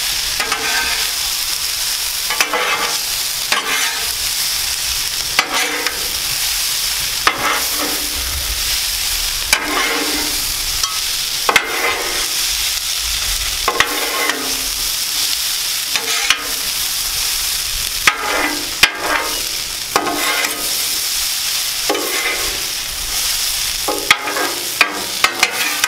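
Shredded hash browns sizzling in hot oil on a Blackstone flat-top steel griddle, with metal spatulas scraping and clacking on the cooktop every second or two as the potatoes are tossed and piled.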